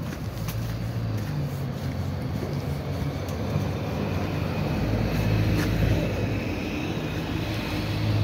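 City street traffic: a steady engine and tyre rumble from cars on the road, growing louder a little past halfway.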